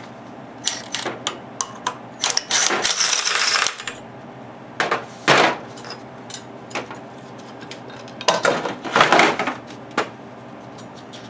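Metal clinks and clatter of small engine parts being handled on a sheet-metal tray while a Briggs & Stratton engine's flywheel and its screen are taken off. A cordless impact driver runs for about a second near three seconds in, with a sharp knock a couple of seconds later and a burst of clinking near the end.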